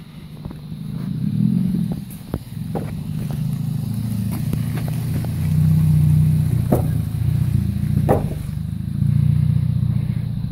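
Scion xB's four-cylinder engine running at low revs as the car creeps forward, heard through a factory exhaust with the muffler replaced by a straight delete pipe: a steady low exhaust drone that swells with light throttle a few times.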